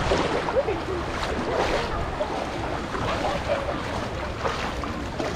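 Beach ambience: a steady wash of water and wind noise on the microphone, with faint scattered voices of people.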